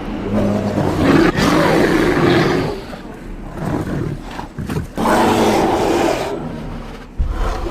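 Loud animal roaring in two long stretches, the first at the start and the second about five seconds in, with a short low thump near the end.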